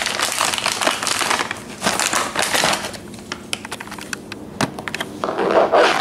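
A plastic bag of dog treats crinkling as it is handled for about three seconds, then a few scattered clicks and a sharp knock as the camera is moved and set down on the tile floor.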